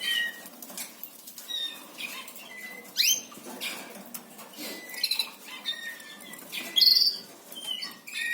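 Canaries in breeding cages giving short chirps and quick rising calls, with fluttering wings and scattered light clicks.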